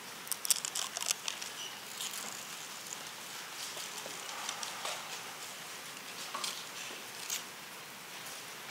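Crinkling, crackling thin plastic film as a prepackaged communion cup is peeled open and the wafer taken out. A cluster of sharp crackles comes about half a second to a second and a half in, followed by scattered quieter crackles.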